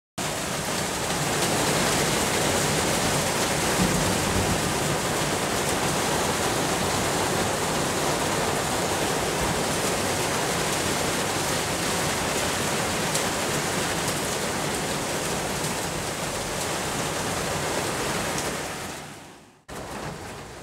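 Heavy thunderstorm rain pouring down, a steady dense hiss that fades away near the end.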